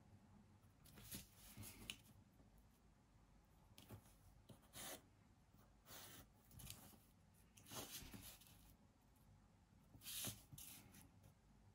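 Faint pencil strokes scratching on paper, in short separate strokes every second or two.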